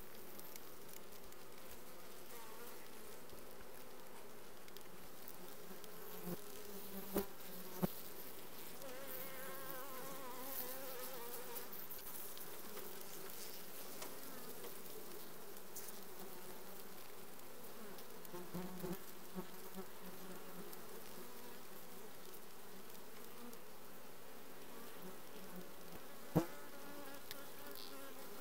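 Honeybee colony buzzing in an open hive, a steady wavering hum of many bees. A few sharp taps stand out briefly, twice around a quarter of the way in and once near the end.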